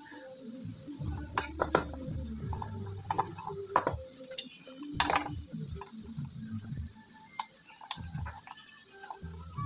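Irregular sharp clicks and clinks of a metal hand tool and copper wire being handled on a wooden amplifier board, the loudest about two, four and five seconds in.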